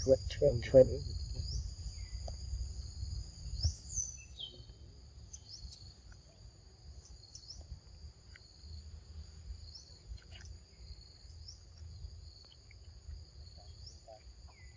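Steady insect chorus: two continuous high tones that never let up, over a low rumble. A couple of short calls sound about a second in.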